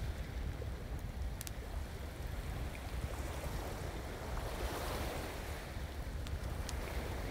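Sea surf washing on the shore under a steady low wind rumble on the microphone, a wave swelling up about five seconds in, with a few faint sharp clicks.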